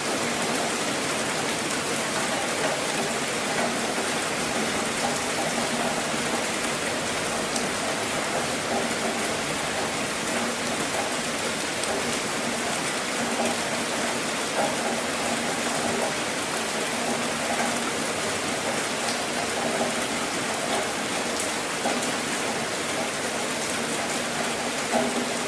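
Steady rain falling on a car, a dense even patter of drops with scattered individual drop ticks.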